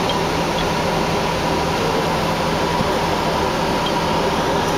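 Steady rushing noise inside a city bus as it drives through floodwater on the freeway, the engine and wheel spray running together with a faint steady hum.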